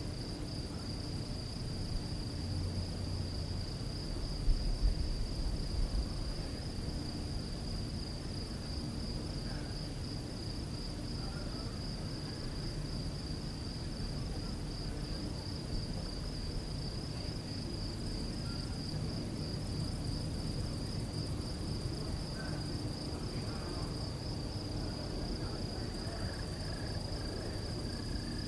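Crickets singing at night: a dense, steady, high-pitched trill that never lets up. A brief low rumble about five seconds in is the loudest moment.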